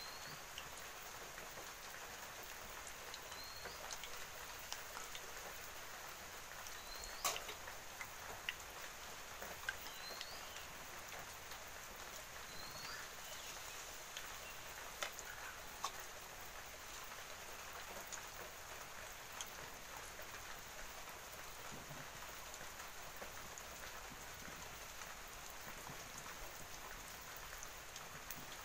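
Palmyra kavum batter deep-frying in hot oil in an aluminium wok: a steady sizzle with scattered pops and clicks, the sharpest about seven seconds in. A small bird chirps briefly now and then.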